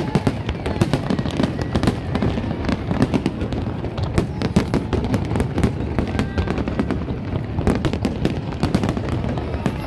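Aerial fireworks display going off in a dense, continuous barrage: rapid overlapping bangs and crackling pops, many a second, over a steady low rumble.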